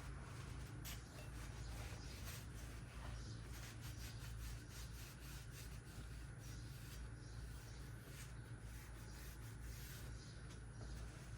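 Faint, irregular rubbing and scraping as strut parts are wiped and cleaned by hand, over a steady low hum.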